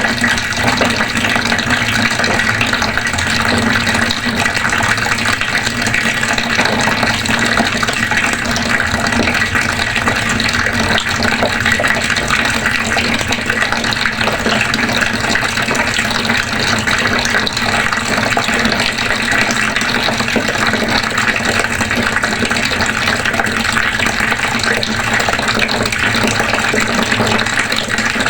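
Water running steadily from a faucet.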